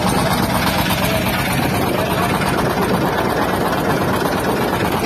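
Engine of a small wooden motorboat running steadily under way, a dense, even drone with a low pulse.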